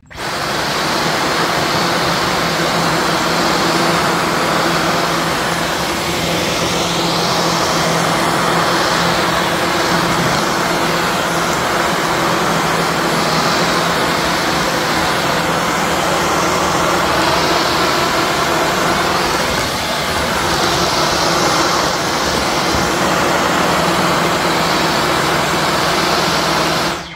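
Dyson V15 cordless stick vacuum switched on and vacuuming the floor: a loud, steady rush of air with a steady motor whine, cut off at the end.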